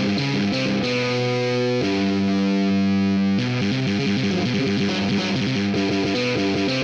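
Distorted electric guitar played on GarageBand's touch-screen guitar instrument: quick runs of notes, a chord held for about a second and a half partway through, then fast notes again.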